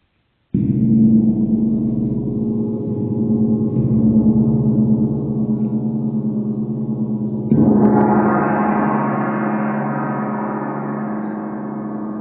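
Large hanging therapeutic gong struck twice, about seven seconds apart, each stroke followed by a long ring of many overlapping tones that slowly dies away; the second stroke brings out brighter upper tones.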